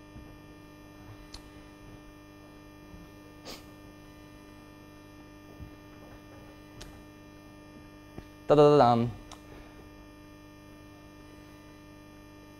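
Steady electrical mains hum from the sound system with a few faint clicks, interrupted about two thirds of the way through by one short voice-like sound, such as a brief 'ehm'.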